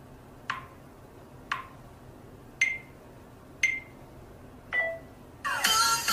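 Phone camera self-timer counting down: five short beeps about once a second, the last two higher-pitched. About five and a half seconds in, music starts.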